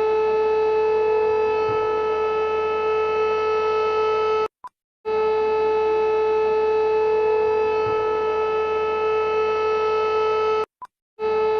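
Armenian emergency alert alarm sounding a harsh, steady tone at one unchanging pitch in long blasts of about five and a half seconds, broken twice by short half-second gaps.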